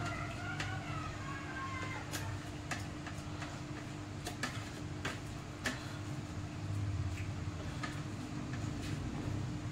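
Hands working wet masala marinade into whole tilapia in a steel plate, with scattered small sharp clicks of the hand and fish against the steel. A steady low hum runs underneath.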